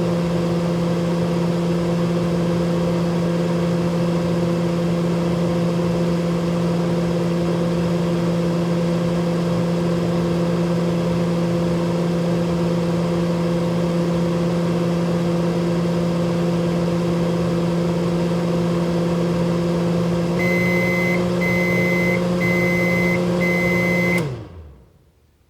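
Microwave oven running with a steady electrical hum. Near the end, four evenly spaced high beeps sound, then the hum winds down and stops.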